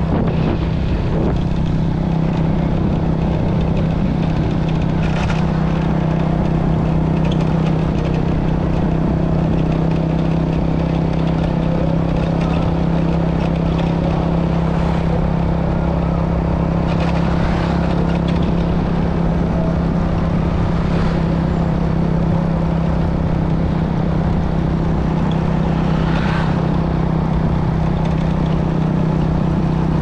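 Motorcycle engine running at a steady cruise, a constant low hum, with wind and road noise and a few brief rushes of louder noise.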